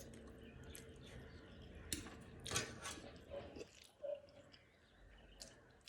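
Close-up eating sounds: soft chewing with a few sharp crunchy bites and mouth clicks near the middle.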